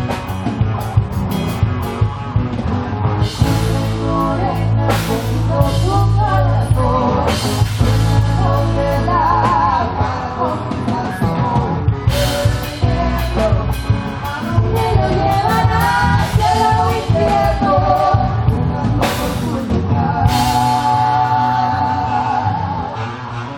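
Live Argentine folk music from a group with drums and a wavering sung or melodic line, played through a sound system; it tapers off near the end.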